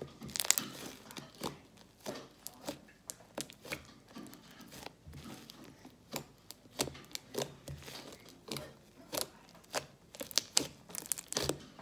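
Slime being squished and stretched by hand, making irregular sticky clicks and pops.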